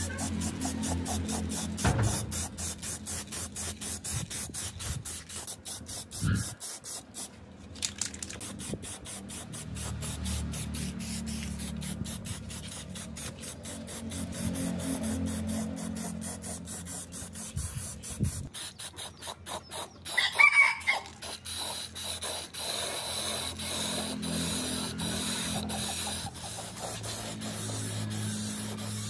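Aerosol spray paint cans hissing as paint is sprayed onto cast metal machine parts, starting and stopping between passes. A brief louder sound comes about twenty seconds in.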